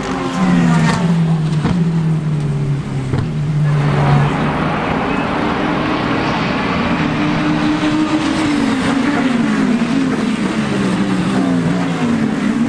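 Endurance race car engines at speed: one holds a steady note, then about four seconds in a louder car comes through and its pitch climbs and drops in steps as it shifts gears.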